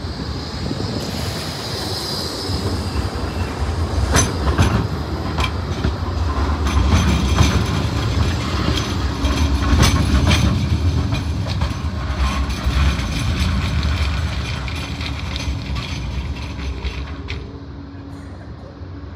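Blackpool Bombardier Flexity 2 tram passing close by on street-running track, its wheels clicking over the rails, with a high wheel squeal about two seconds in. The sound builds to a peak around ten seconds in, then fades as the tram draws away.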